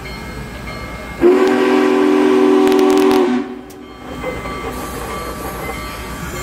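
Steam whistle of Union Pacific Big Boy 4014 blowing one steady chord for about two seconds, beginning about a second in, with a steady hiss before and after it.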